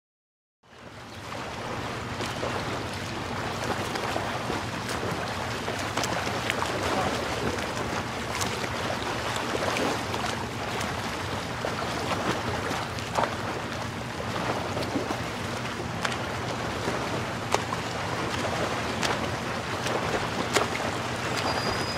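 Lakeshore ambience: wind on the microphone over small waves lapping at the shore, with a steady low hum underneath and scattered faint ticks.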